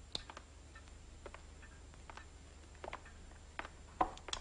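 Faint, irregular clicks and knocks over a low steady hum, the loudest two near the end: footsteps and small movements of people in a room.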